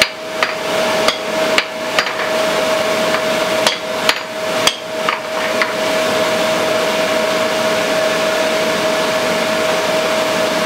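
A 5 lb hammer striking red-hot 3/4 inch square mild steel on an anvil, about ten blows at a relaxed pace, stopping about six seconds in. A steady hum and hiss runs underneath throughout.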